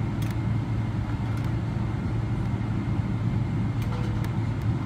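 Steady low hum in the cabin of a Boeing 777-300ER taxiing, its GE90 engines at idle, with a few faint clicks.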